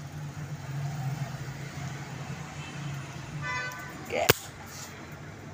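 A single sharp knock about four seconds in as something strikes the recording phone right at its microphone, just after a brief high squeak, over a steady low hum.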